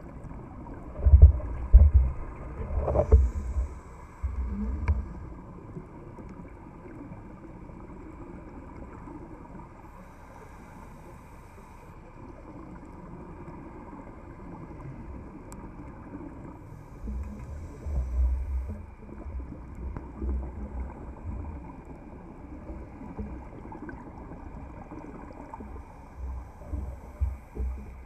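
Muffled underwater sound heard through a camera housing: a diver's exhaled regulator bubbles come in low, bubbling surges in the first few seconds and again from about 17 seconds on, over a steady low background rumble.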